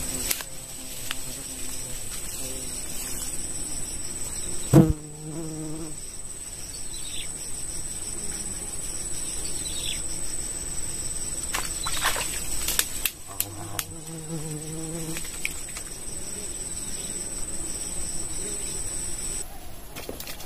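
Insects droning steadily at a high pitch, cutting off about a second before the end. A sharp click cuts through just under five seconds in.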